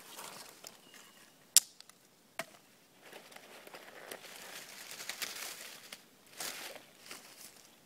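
Dry twigs and dead leaves rustling and crackling as they are gathered and handled by hand on the forest floor, with a sharp crack about a second and a half in and a smaller one a second later.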